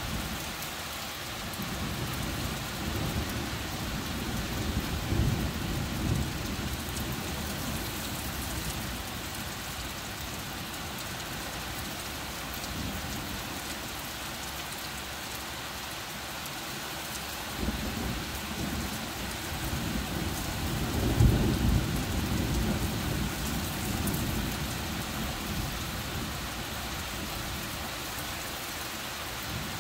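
Heavy rain falling steadily on trees, with two long rolls of thunder: one building from the start and peaking a few seconds in, and a louder one starting a little past halfway and fading out over several seconds.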